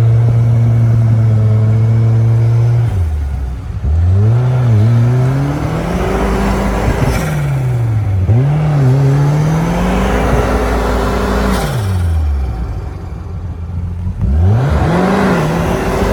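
Off-road vehicle's engine revving hard under load, held high at first, then rising and falling in pitch about four times as the driver works the throttle. The vehicle is bogging down in wet snow and sand and gets stuck.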